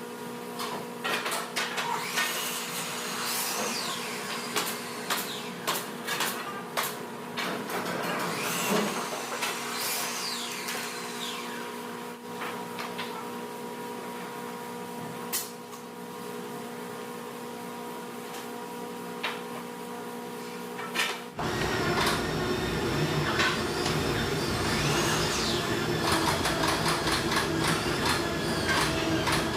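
Building-site work on a timber structure: scattered knocks and taps over a steady machine hum, with some high squeaks. About two-thirds through, the sound changes abruptly to a louder, lower rumble with the same high squeaks over it.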